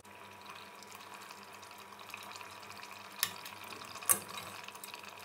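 Steel ladle working in an open pressure-cooker pot of sardine curry, over a faint steady liquid sound of the pot's contents. The ladle clinks sharply against the pot twice, about a second apart, the second clink louder.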